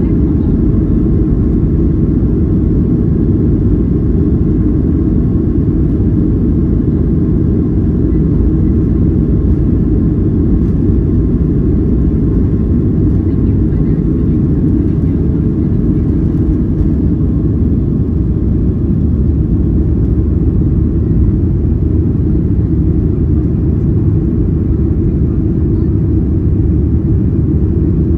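Boeing 737-700's CFM56-7B turbofan engines at takeoff thrust, heard from inside the cabin over the wing. They give a loud, steady, deep rumble through the takeoff roll and into the climb-out.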